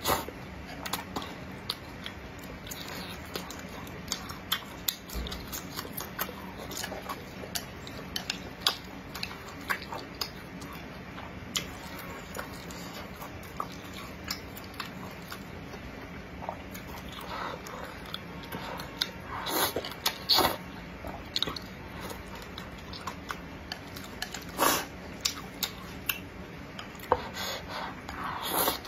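Close-miked eating of spicy stir-fried Jiangxi rice noodles: wet chewing and small mouth clicks throughout, with a few louder bursts as mouthfuls of noodles are drawn in.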